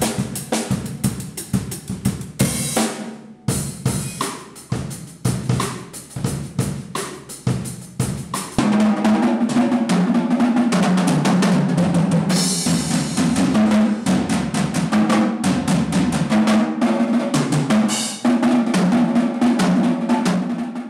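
Two drum kits played together: rapid snare, bass drum, tom and cymbal hits with a short break about three seconds in. About eight seconds in the playing swells into a continuous loud roll across drums and cymbals.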